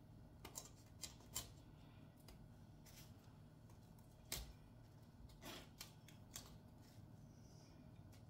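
Kitchen knife cutting the tough core out of a whole raw cauliflower: a few faint, irregular crunches and snaps.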